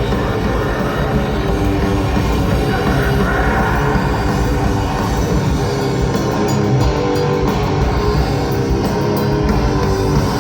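Death metal band playing live: distorted electric guitars, bass and drums, dense and loud.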